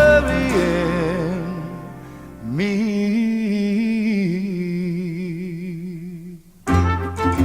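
Pop song recording. After a sliding note, a single long note is held with vibrato over sparse backing. About seven seconds in the full band, with brass, comes back in abruptly.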